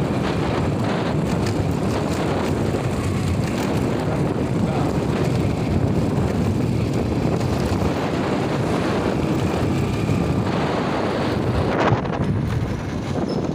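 Wind buffeting the microphone over the steady drone of a moving motorcycle's engine while riding along a rough road.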